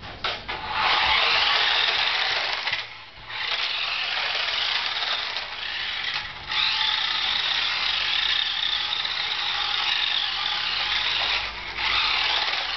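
Small electric motor and plastic gears of a toy radio-controlled car whirring as it drives. The whirr breaks off briefly about three seconds in and again near the end.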